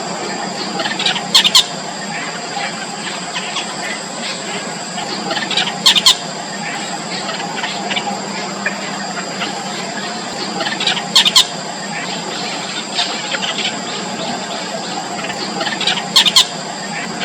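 Yellow bittern nestlings squealing and chattering in the nest, with a louder burst of squeals about every five seconds. Steady high thin tones run underneath.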